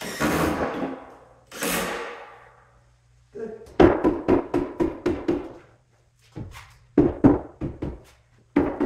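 Two short bursts of a cordless drill, then a mallet knocking on a plywood cabinet base in quick runs of about four to five blows a second.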